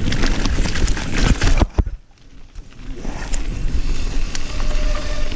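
Mountain bike running fast down a rocky, leaf-strewn dirt trail: tyres rumbling and crunching over stones, with rattling clatter from the bike. Just under two seconds in there is a sharp clack, then the noise drops away for about a second before the rumble builds again.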